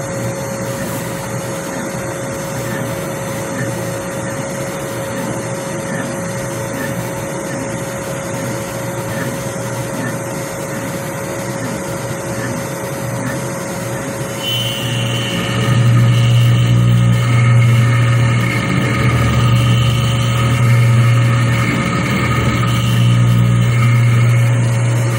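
DIY CNC milling machine's spindle whining steadily as an end mill cuts an aluminium block. About halfway through, the cut gets louder, with a deeper hum and extra ringing tones as the cutter engages more metal.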